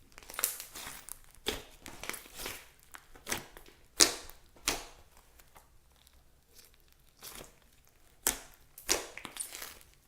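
Slime being stretched and squeezed by hand: an irregular series of sharp crackling, tearing sounds, with a short lull in the middle.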